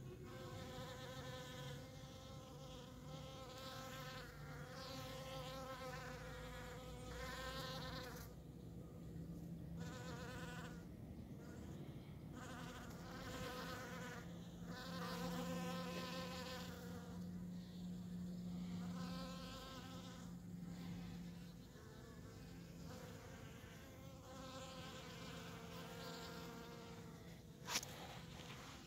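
Honeybees buzzing in flight close by, the buzz swelling and fading in passes of one to a few seconds as bees come and go. A single sharp click near the end.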